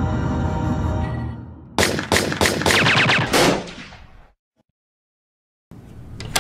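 Dark, tense soundtrack music that stops, followed by a rapid burst of about seven gunshots as a sound effect, trailing off into silence.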